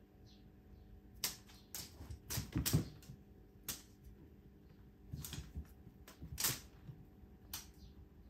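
Irregular taps, clicks and scuffs on a hardwood floor as a cat pounces at a feather wand toy, busiest about two seconds in, with scattered taps after.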